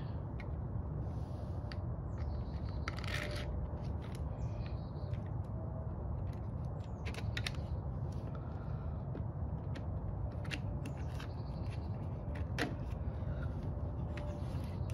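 Scattered light clicks and knocks of a leaf blower's replacement carburetor assembly being handled and fitted into place, over a steady low hum.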